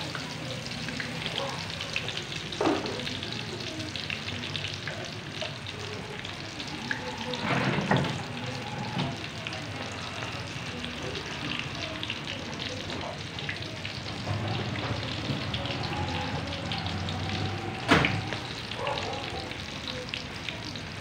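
Ilocos empanadas deep-frying in hot oil in a shallow pan: a steady, dense crackling sizzle. A few sharp knocks stand out, the loudest about three quarters of the way through.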